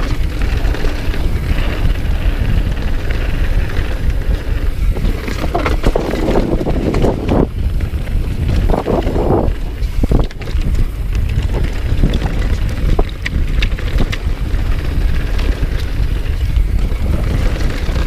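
Downhill mountain bike riding fast over a dirt and gravel trail: steady wind buffeting the microphone with tyre rumble, and scattered clicks and rattles from the bike over the bumps.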